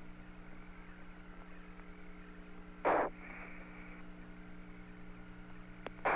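Open Apollo air-to-ground radio channel with no one talking: a steady hum and faint hiss, broken by a short burst of static about three seconds in and another at the very end.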